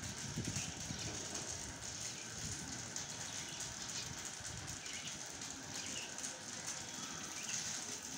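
Faint steady background hiss with a few short, distant bird chirps in the second half.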